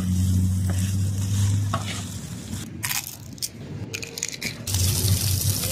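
Diced potatoes and carrots frying in oil on a flat street-stall griddle, sizzling, with a metal spatula scraping and clicking on the griddle as it stirs them. The sizzle turns louder and brighter about three-quarters of the way in.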